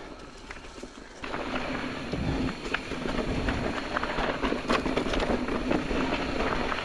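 Orbea Wild FS electric mountain bike riding a dirt trail: a noise bed of tyres on the ground with frequent clicks and rattles from the bike, over a steady hum. It gets louder about a second in.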